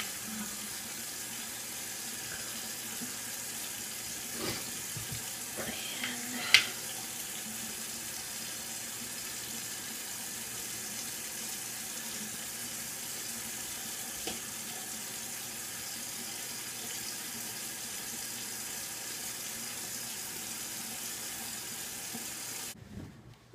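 Bathroom sink tap running steadily, water pouring into the basin, with a few light knocks and one sharper clack about six seconds in. The running water stops abruptly near the end.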